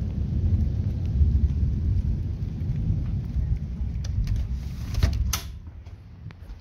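Thunder rumbling low and steady under a faint hiss of rain, dying away about five seconds in. Near the end come a few sharp clicks and knocks as the phone is moved away from the window.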